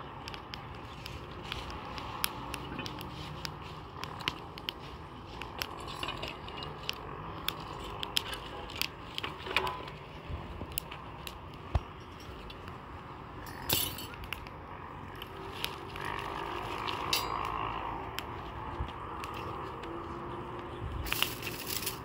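Scattered crackles and sharp clicks from a small fire of dry grass and sticks burning in an open earthen hearth, with handling knocks and clinks of an iron trivet and a louder clatter near the end as it is set over the fire.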